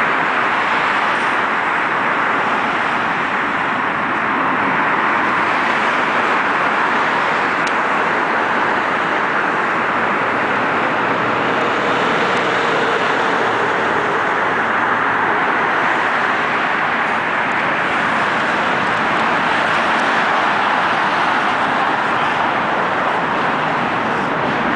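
Steady, loud noise of a moving vehicle or traffic, an even roar with no distinct events.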